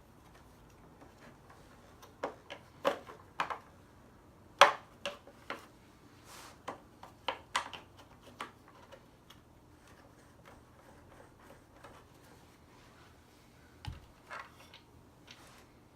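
Irregular clicks and knocks of an Oreck XL upright vacuum's roller brush, belt and base parts being handled and fitted by hand. The clicks are densest in the first half, the loudest about four and a half seconds in, with a few more near the end.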